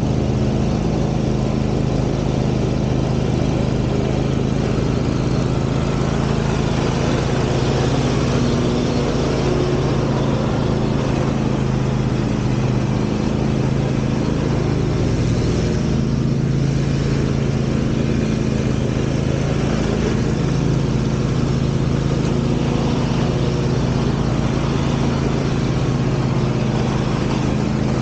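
A commercial lawn mower's engine running steadily while it cuts grass, an even, unchanging hum.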